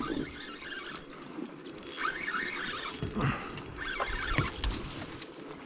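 Spinning reel squealing in wavering bursts while a hooked fish is fought on a light jigging rod, two main bursts about two and four seconds in.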